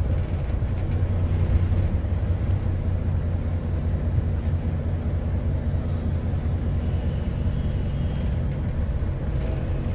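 Steady low rumble of an Alexander Dennis Enviro400 MMC hybrid double-decker bus running, heard from inside the passenger saloon: drivetrain and road noise.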